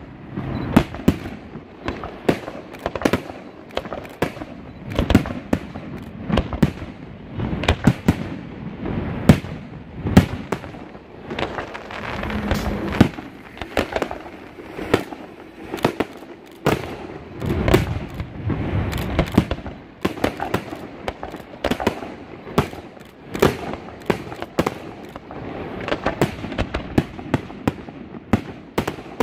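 Fireworks display: aerial shells bursting in quick, irregular succession, many sharp bangs a second overlapping one another.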